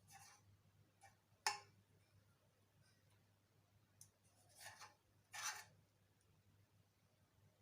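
Near silence, broken by a few brief handling sounds: a sharp click about a second and a half in, then two short scrapes around five seconds in.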